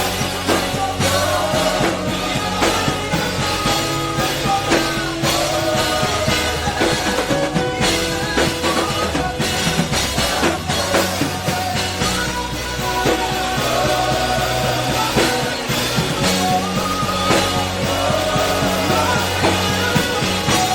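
Live gospel worship band playing with drums and bass, and a melody line that bends and slides over the top, likely a singer's wordless runs.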